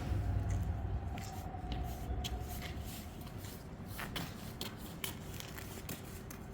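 Urban street ambience: a steady low hum with irregular footsteps and light taps on pavement, and a faint tone that fades out about two and a half seconds in.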